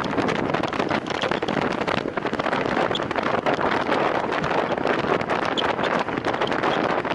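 Steady wind rush buffeting the microphone of a camera riding on a time-trial bicycle at race speed, with a constant crackle of small clicks.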